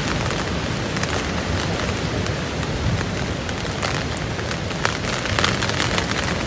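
Nylon tent fabric flapping and crackling in storm wind, heard from inside the tent: a steady rushing noise with a few sharper cracks in the second half.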